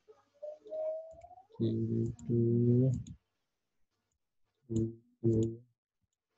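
A man's voice humming two pairs of short, level notes. Faint computer-mouse clicks come through as values are picked from drop-down lists.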